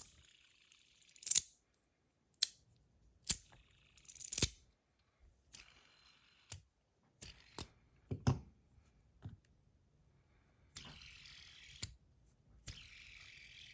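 Metal bar fidget spinners being handled and spun. There is a string of sharp metallic clicks and taps, loudest in the first few seconds, and several stretches of high, hissy whirring from a spinning bearing.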